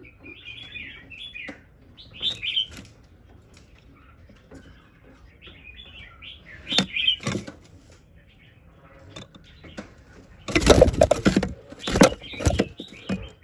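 Male Chinese hwamei (Garrulax canorus) giving short, scattered chirping calls. From about ten seconds in, a loud burst of scuffling and knocks.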